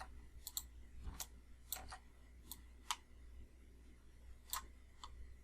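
Sparse, faint clicks from a computer mouse and keyboard, about ten of them at irregular intervals, over a faint steady low hum.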